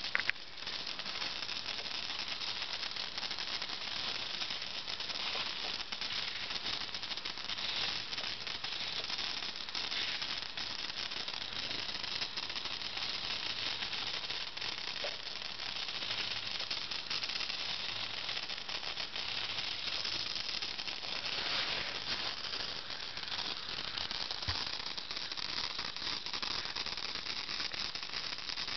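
Small servos of an RC helicopter's 120° CCPM swashplate buzzing and whirring as the transmitter sticks drive them, a steady rattly hiss that swells in a few places. The rotor is not spinning.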